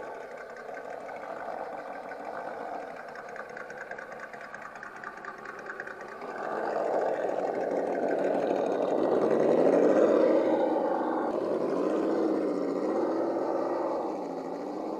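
Electric motor and gear drivetrain of an RC scale crawler whining as it drives, the pitch rising and falling with the throttle. It gets louder about six seconds in, peaks a few seconds later and eases off near the end.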